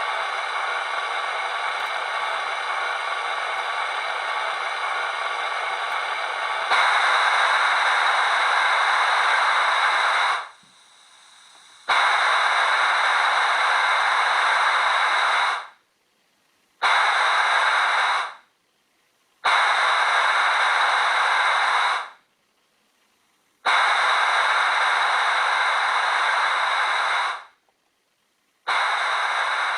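Steam hiss from the sound decoder of a Hornby 00 gauge LMS 8F model, played through its small tender speaker. A steady hiss grows louder about seven seconds in. It then sounds in separate blasts of one and a half to four seconds, each starting and stopping abruptly, with short silent gaps between them.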